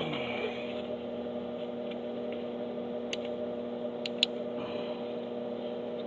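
Steady electrical or machine hum, with a few light ticks about three and four seconds in.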